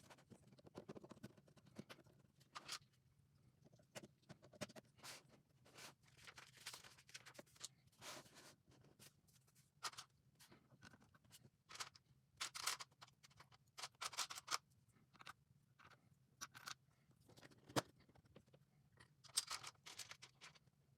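LEGO plastic bricks being handled and pressed together: scattered light clicks and short rustles of pieces, over a faint steady low hum.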